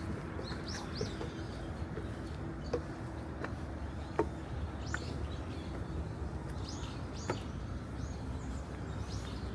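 Small birds chirping in short, high calls, with a few footsteps on the trail's steps and a low steady background rumble.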